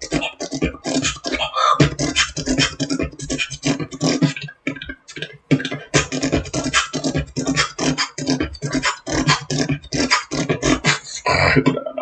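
Human beatboxing: a fast, dense beat of vocal kick, snare and hi-hat sounds made with the mouth, with a brief break about halfway through.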